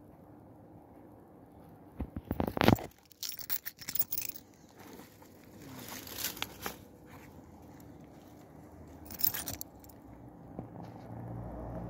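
Short bursts of scraping and rustling with sharp clicks, loudest about two to four seconds in, and again around six and nine seconds.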